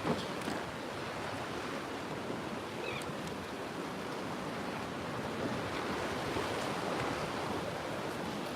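Steady wash of waves and surf at a rock jetty, mixed with wind on the microphone, with a couple of faint clicks near the start and about three seconds in.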